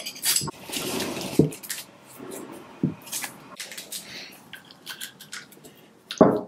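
Masking tape being handled and trimmed with a knife on a cast-iron vise body, with paper rustling and small clicks and knocks of the metal parts on a newspaper-covered bench. There is a louder knock about six seconds in.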